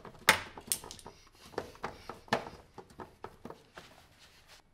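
A run of irregular sharp clicks and knocks, about a dozen over a few seconds, the loudest near the start.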